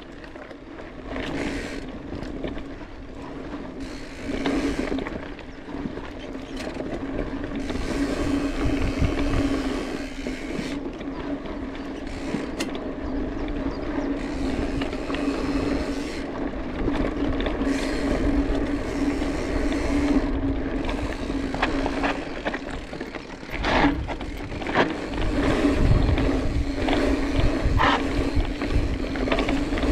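Mountain bike, a Specialized Epic S-Works, ridden along a trail: tyres rolling and the bike rattling, with short knocks and clicks over bumps and a steady hum throughout.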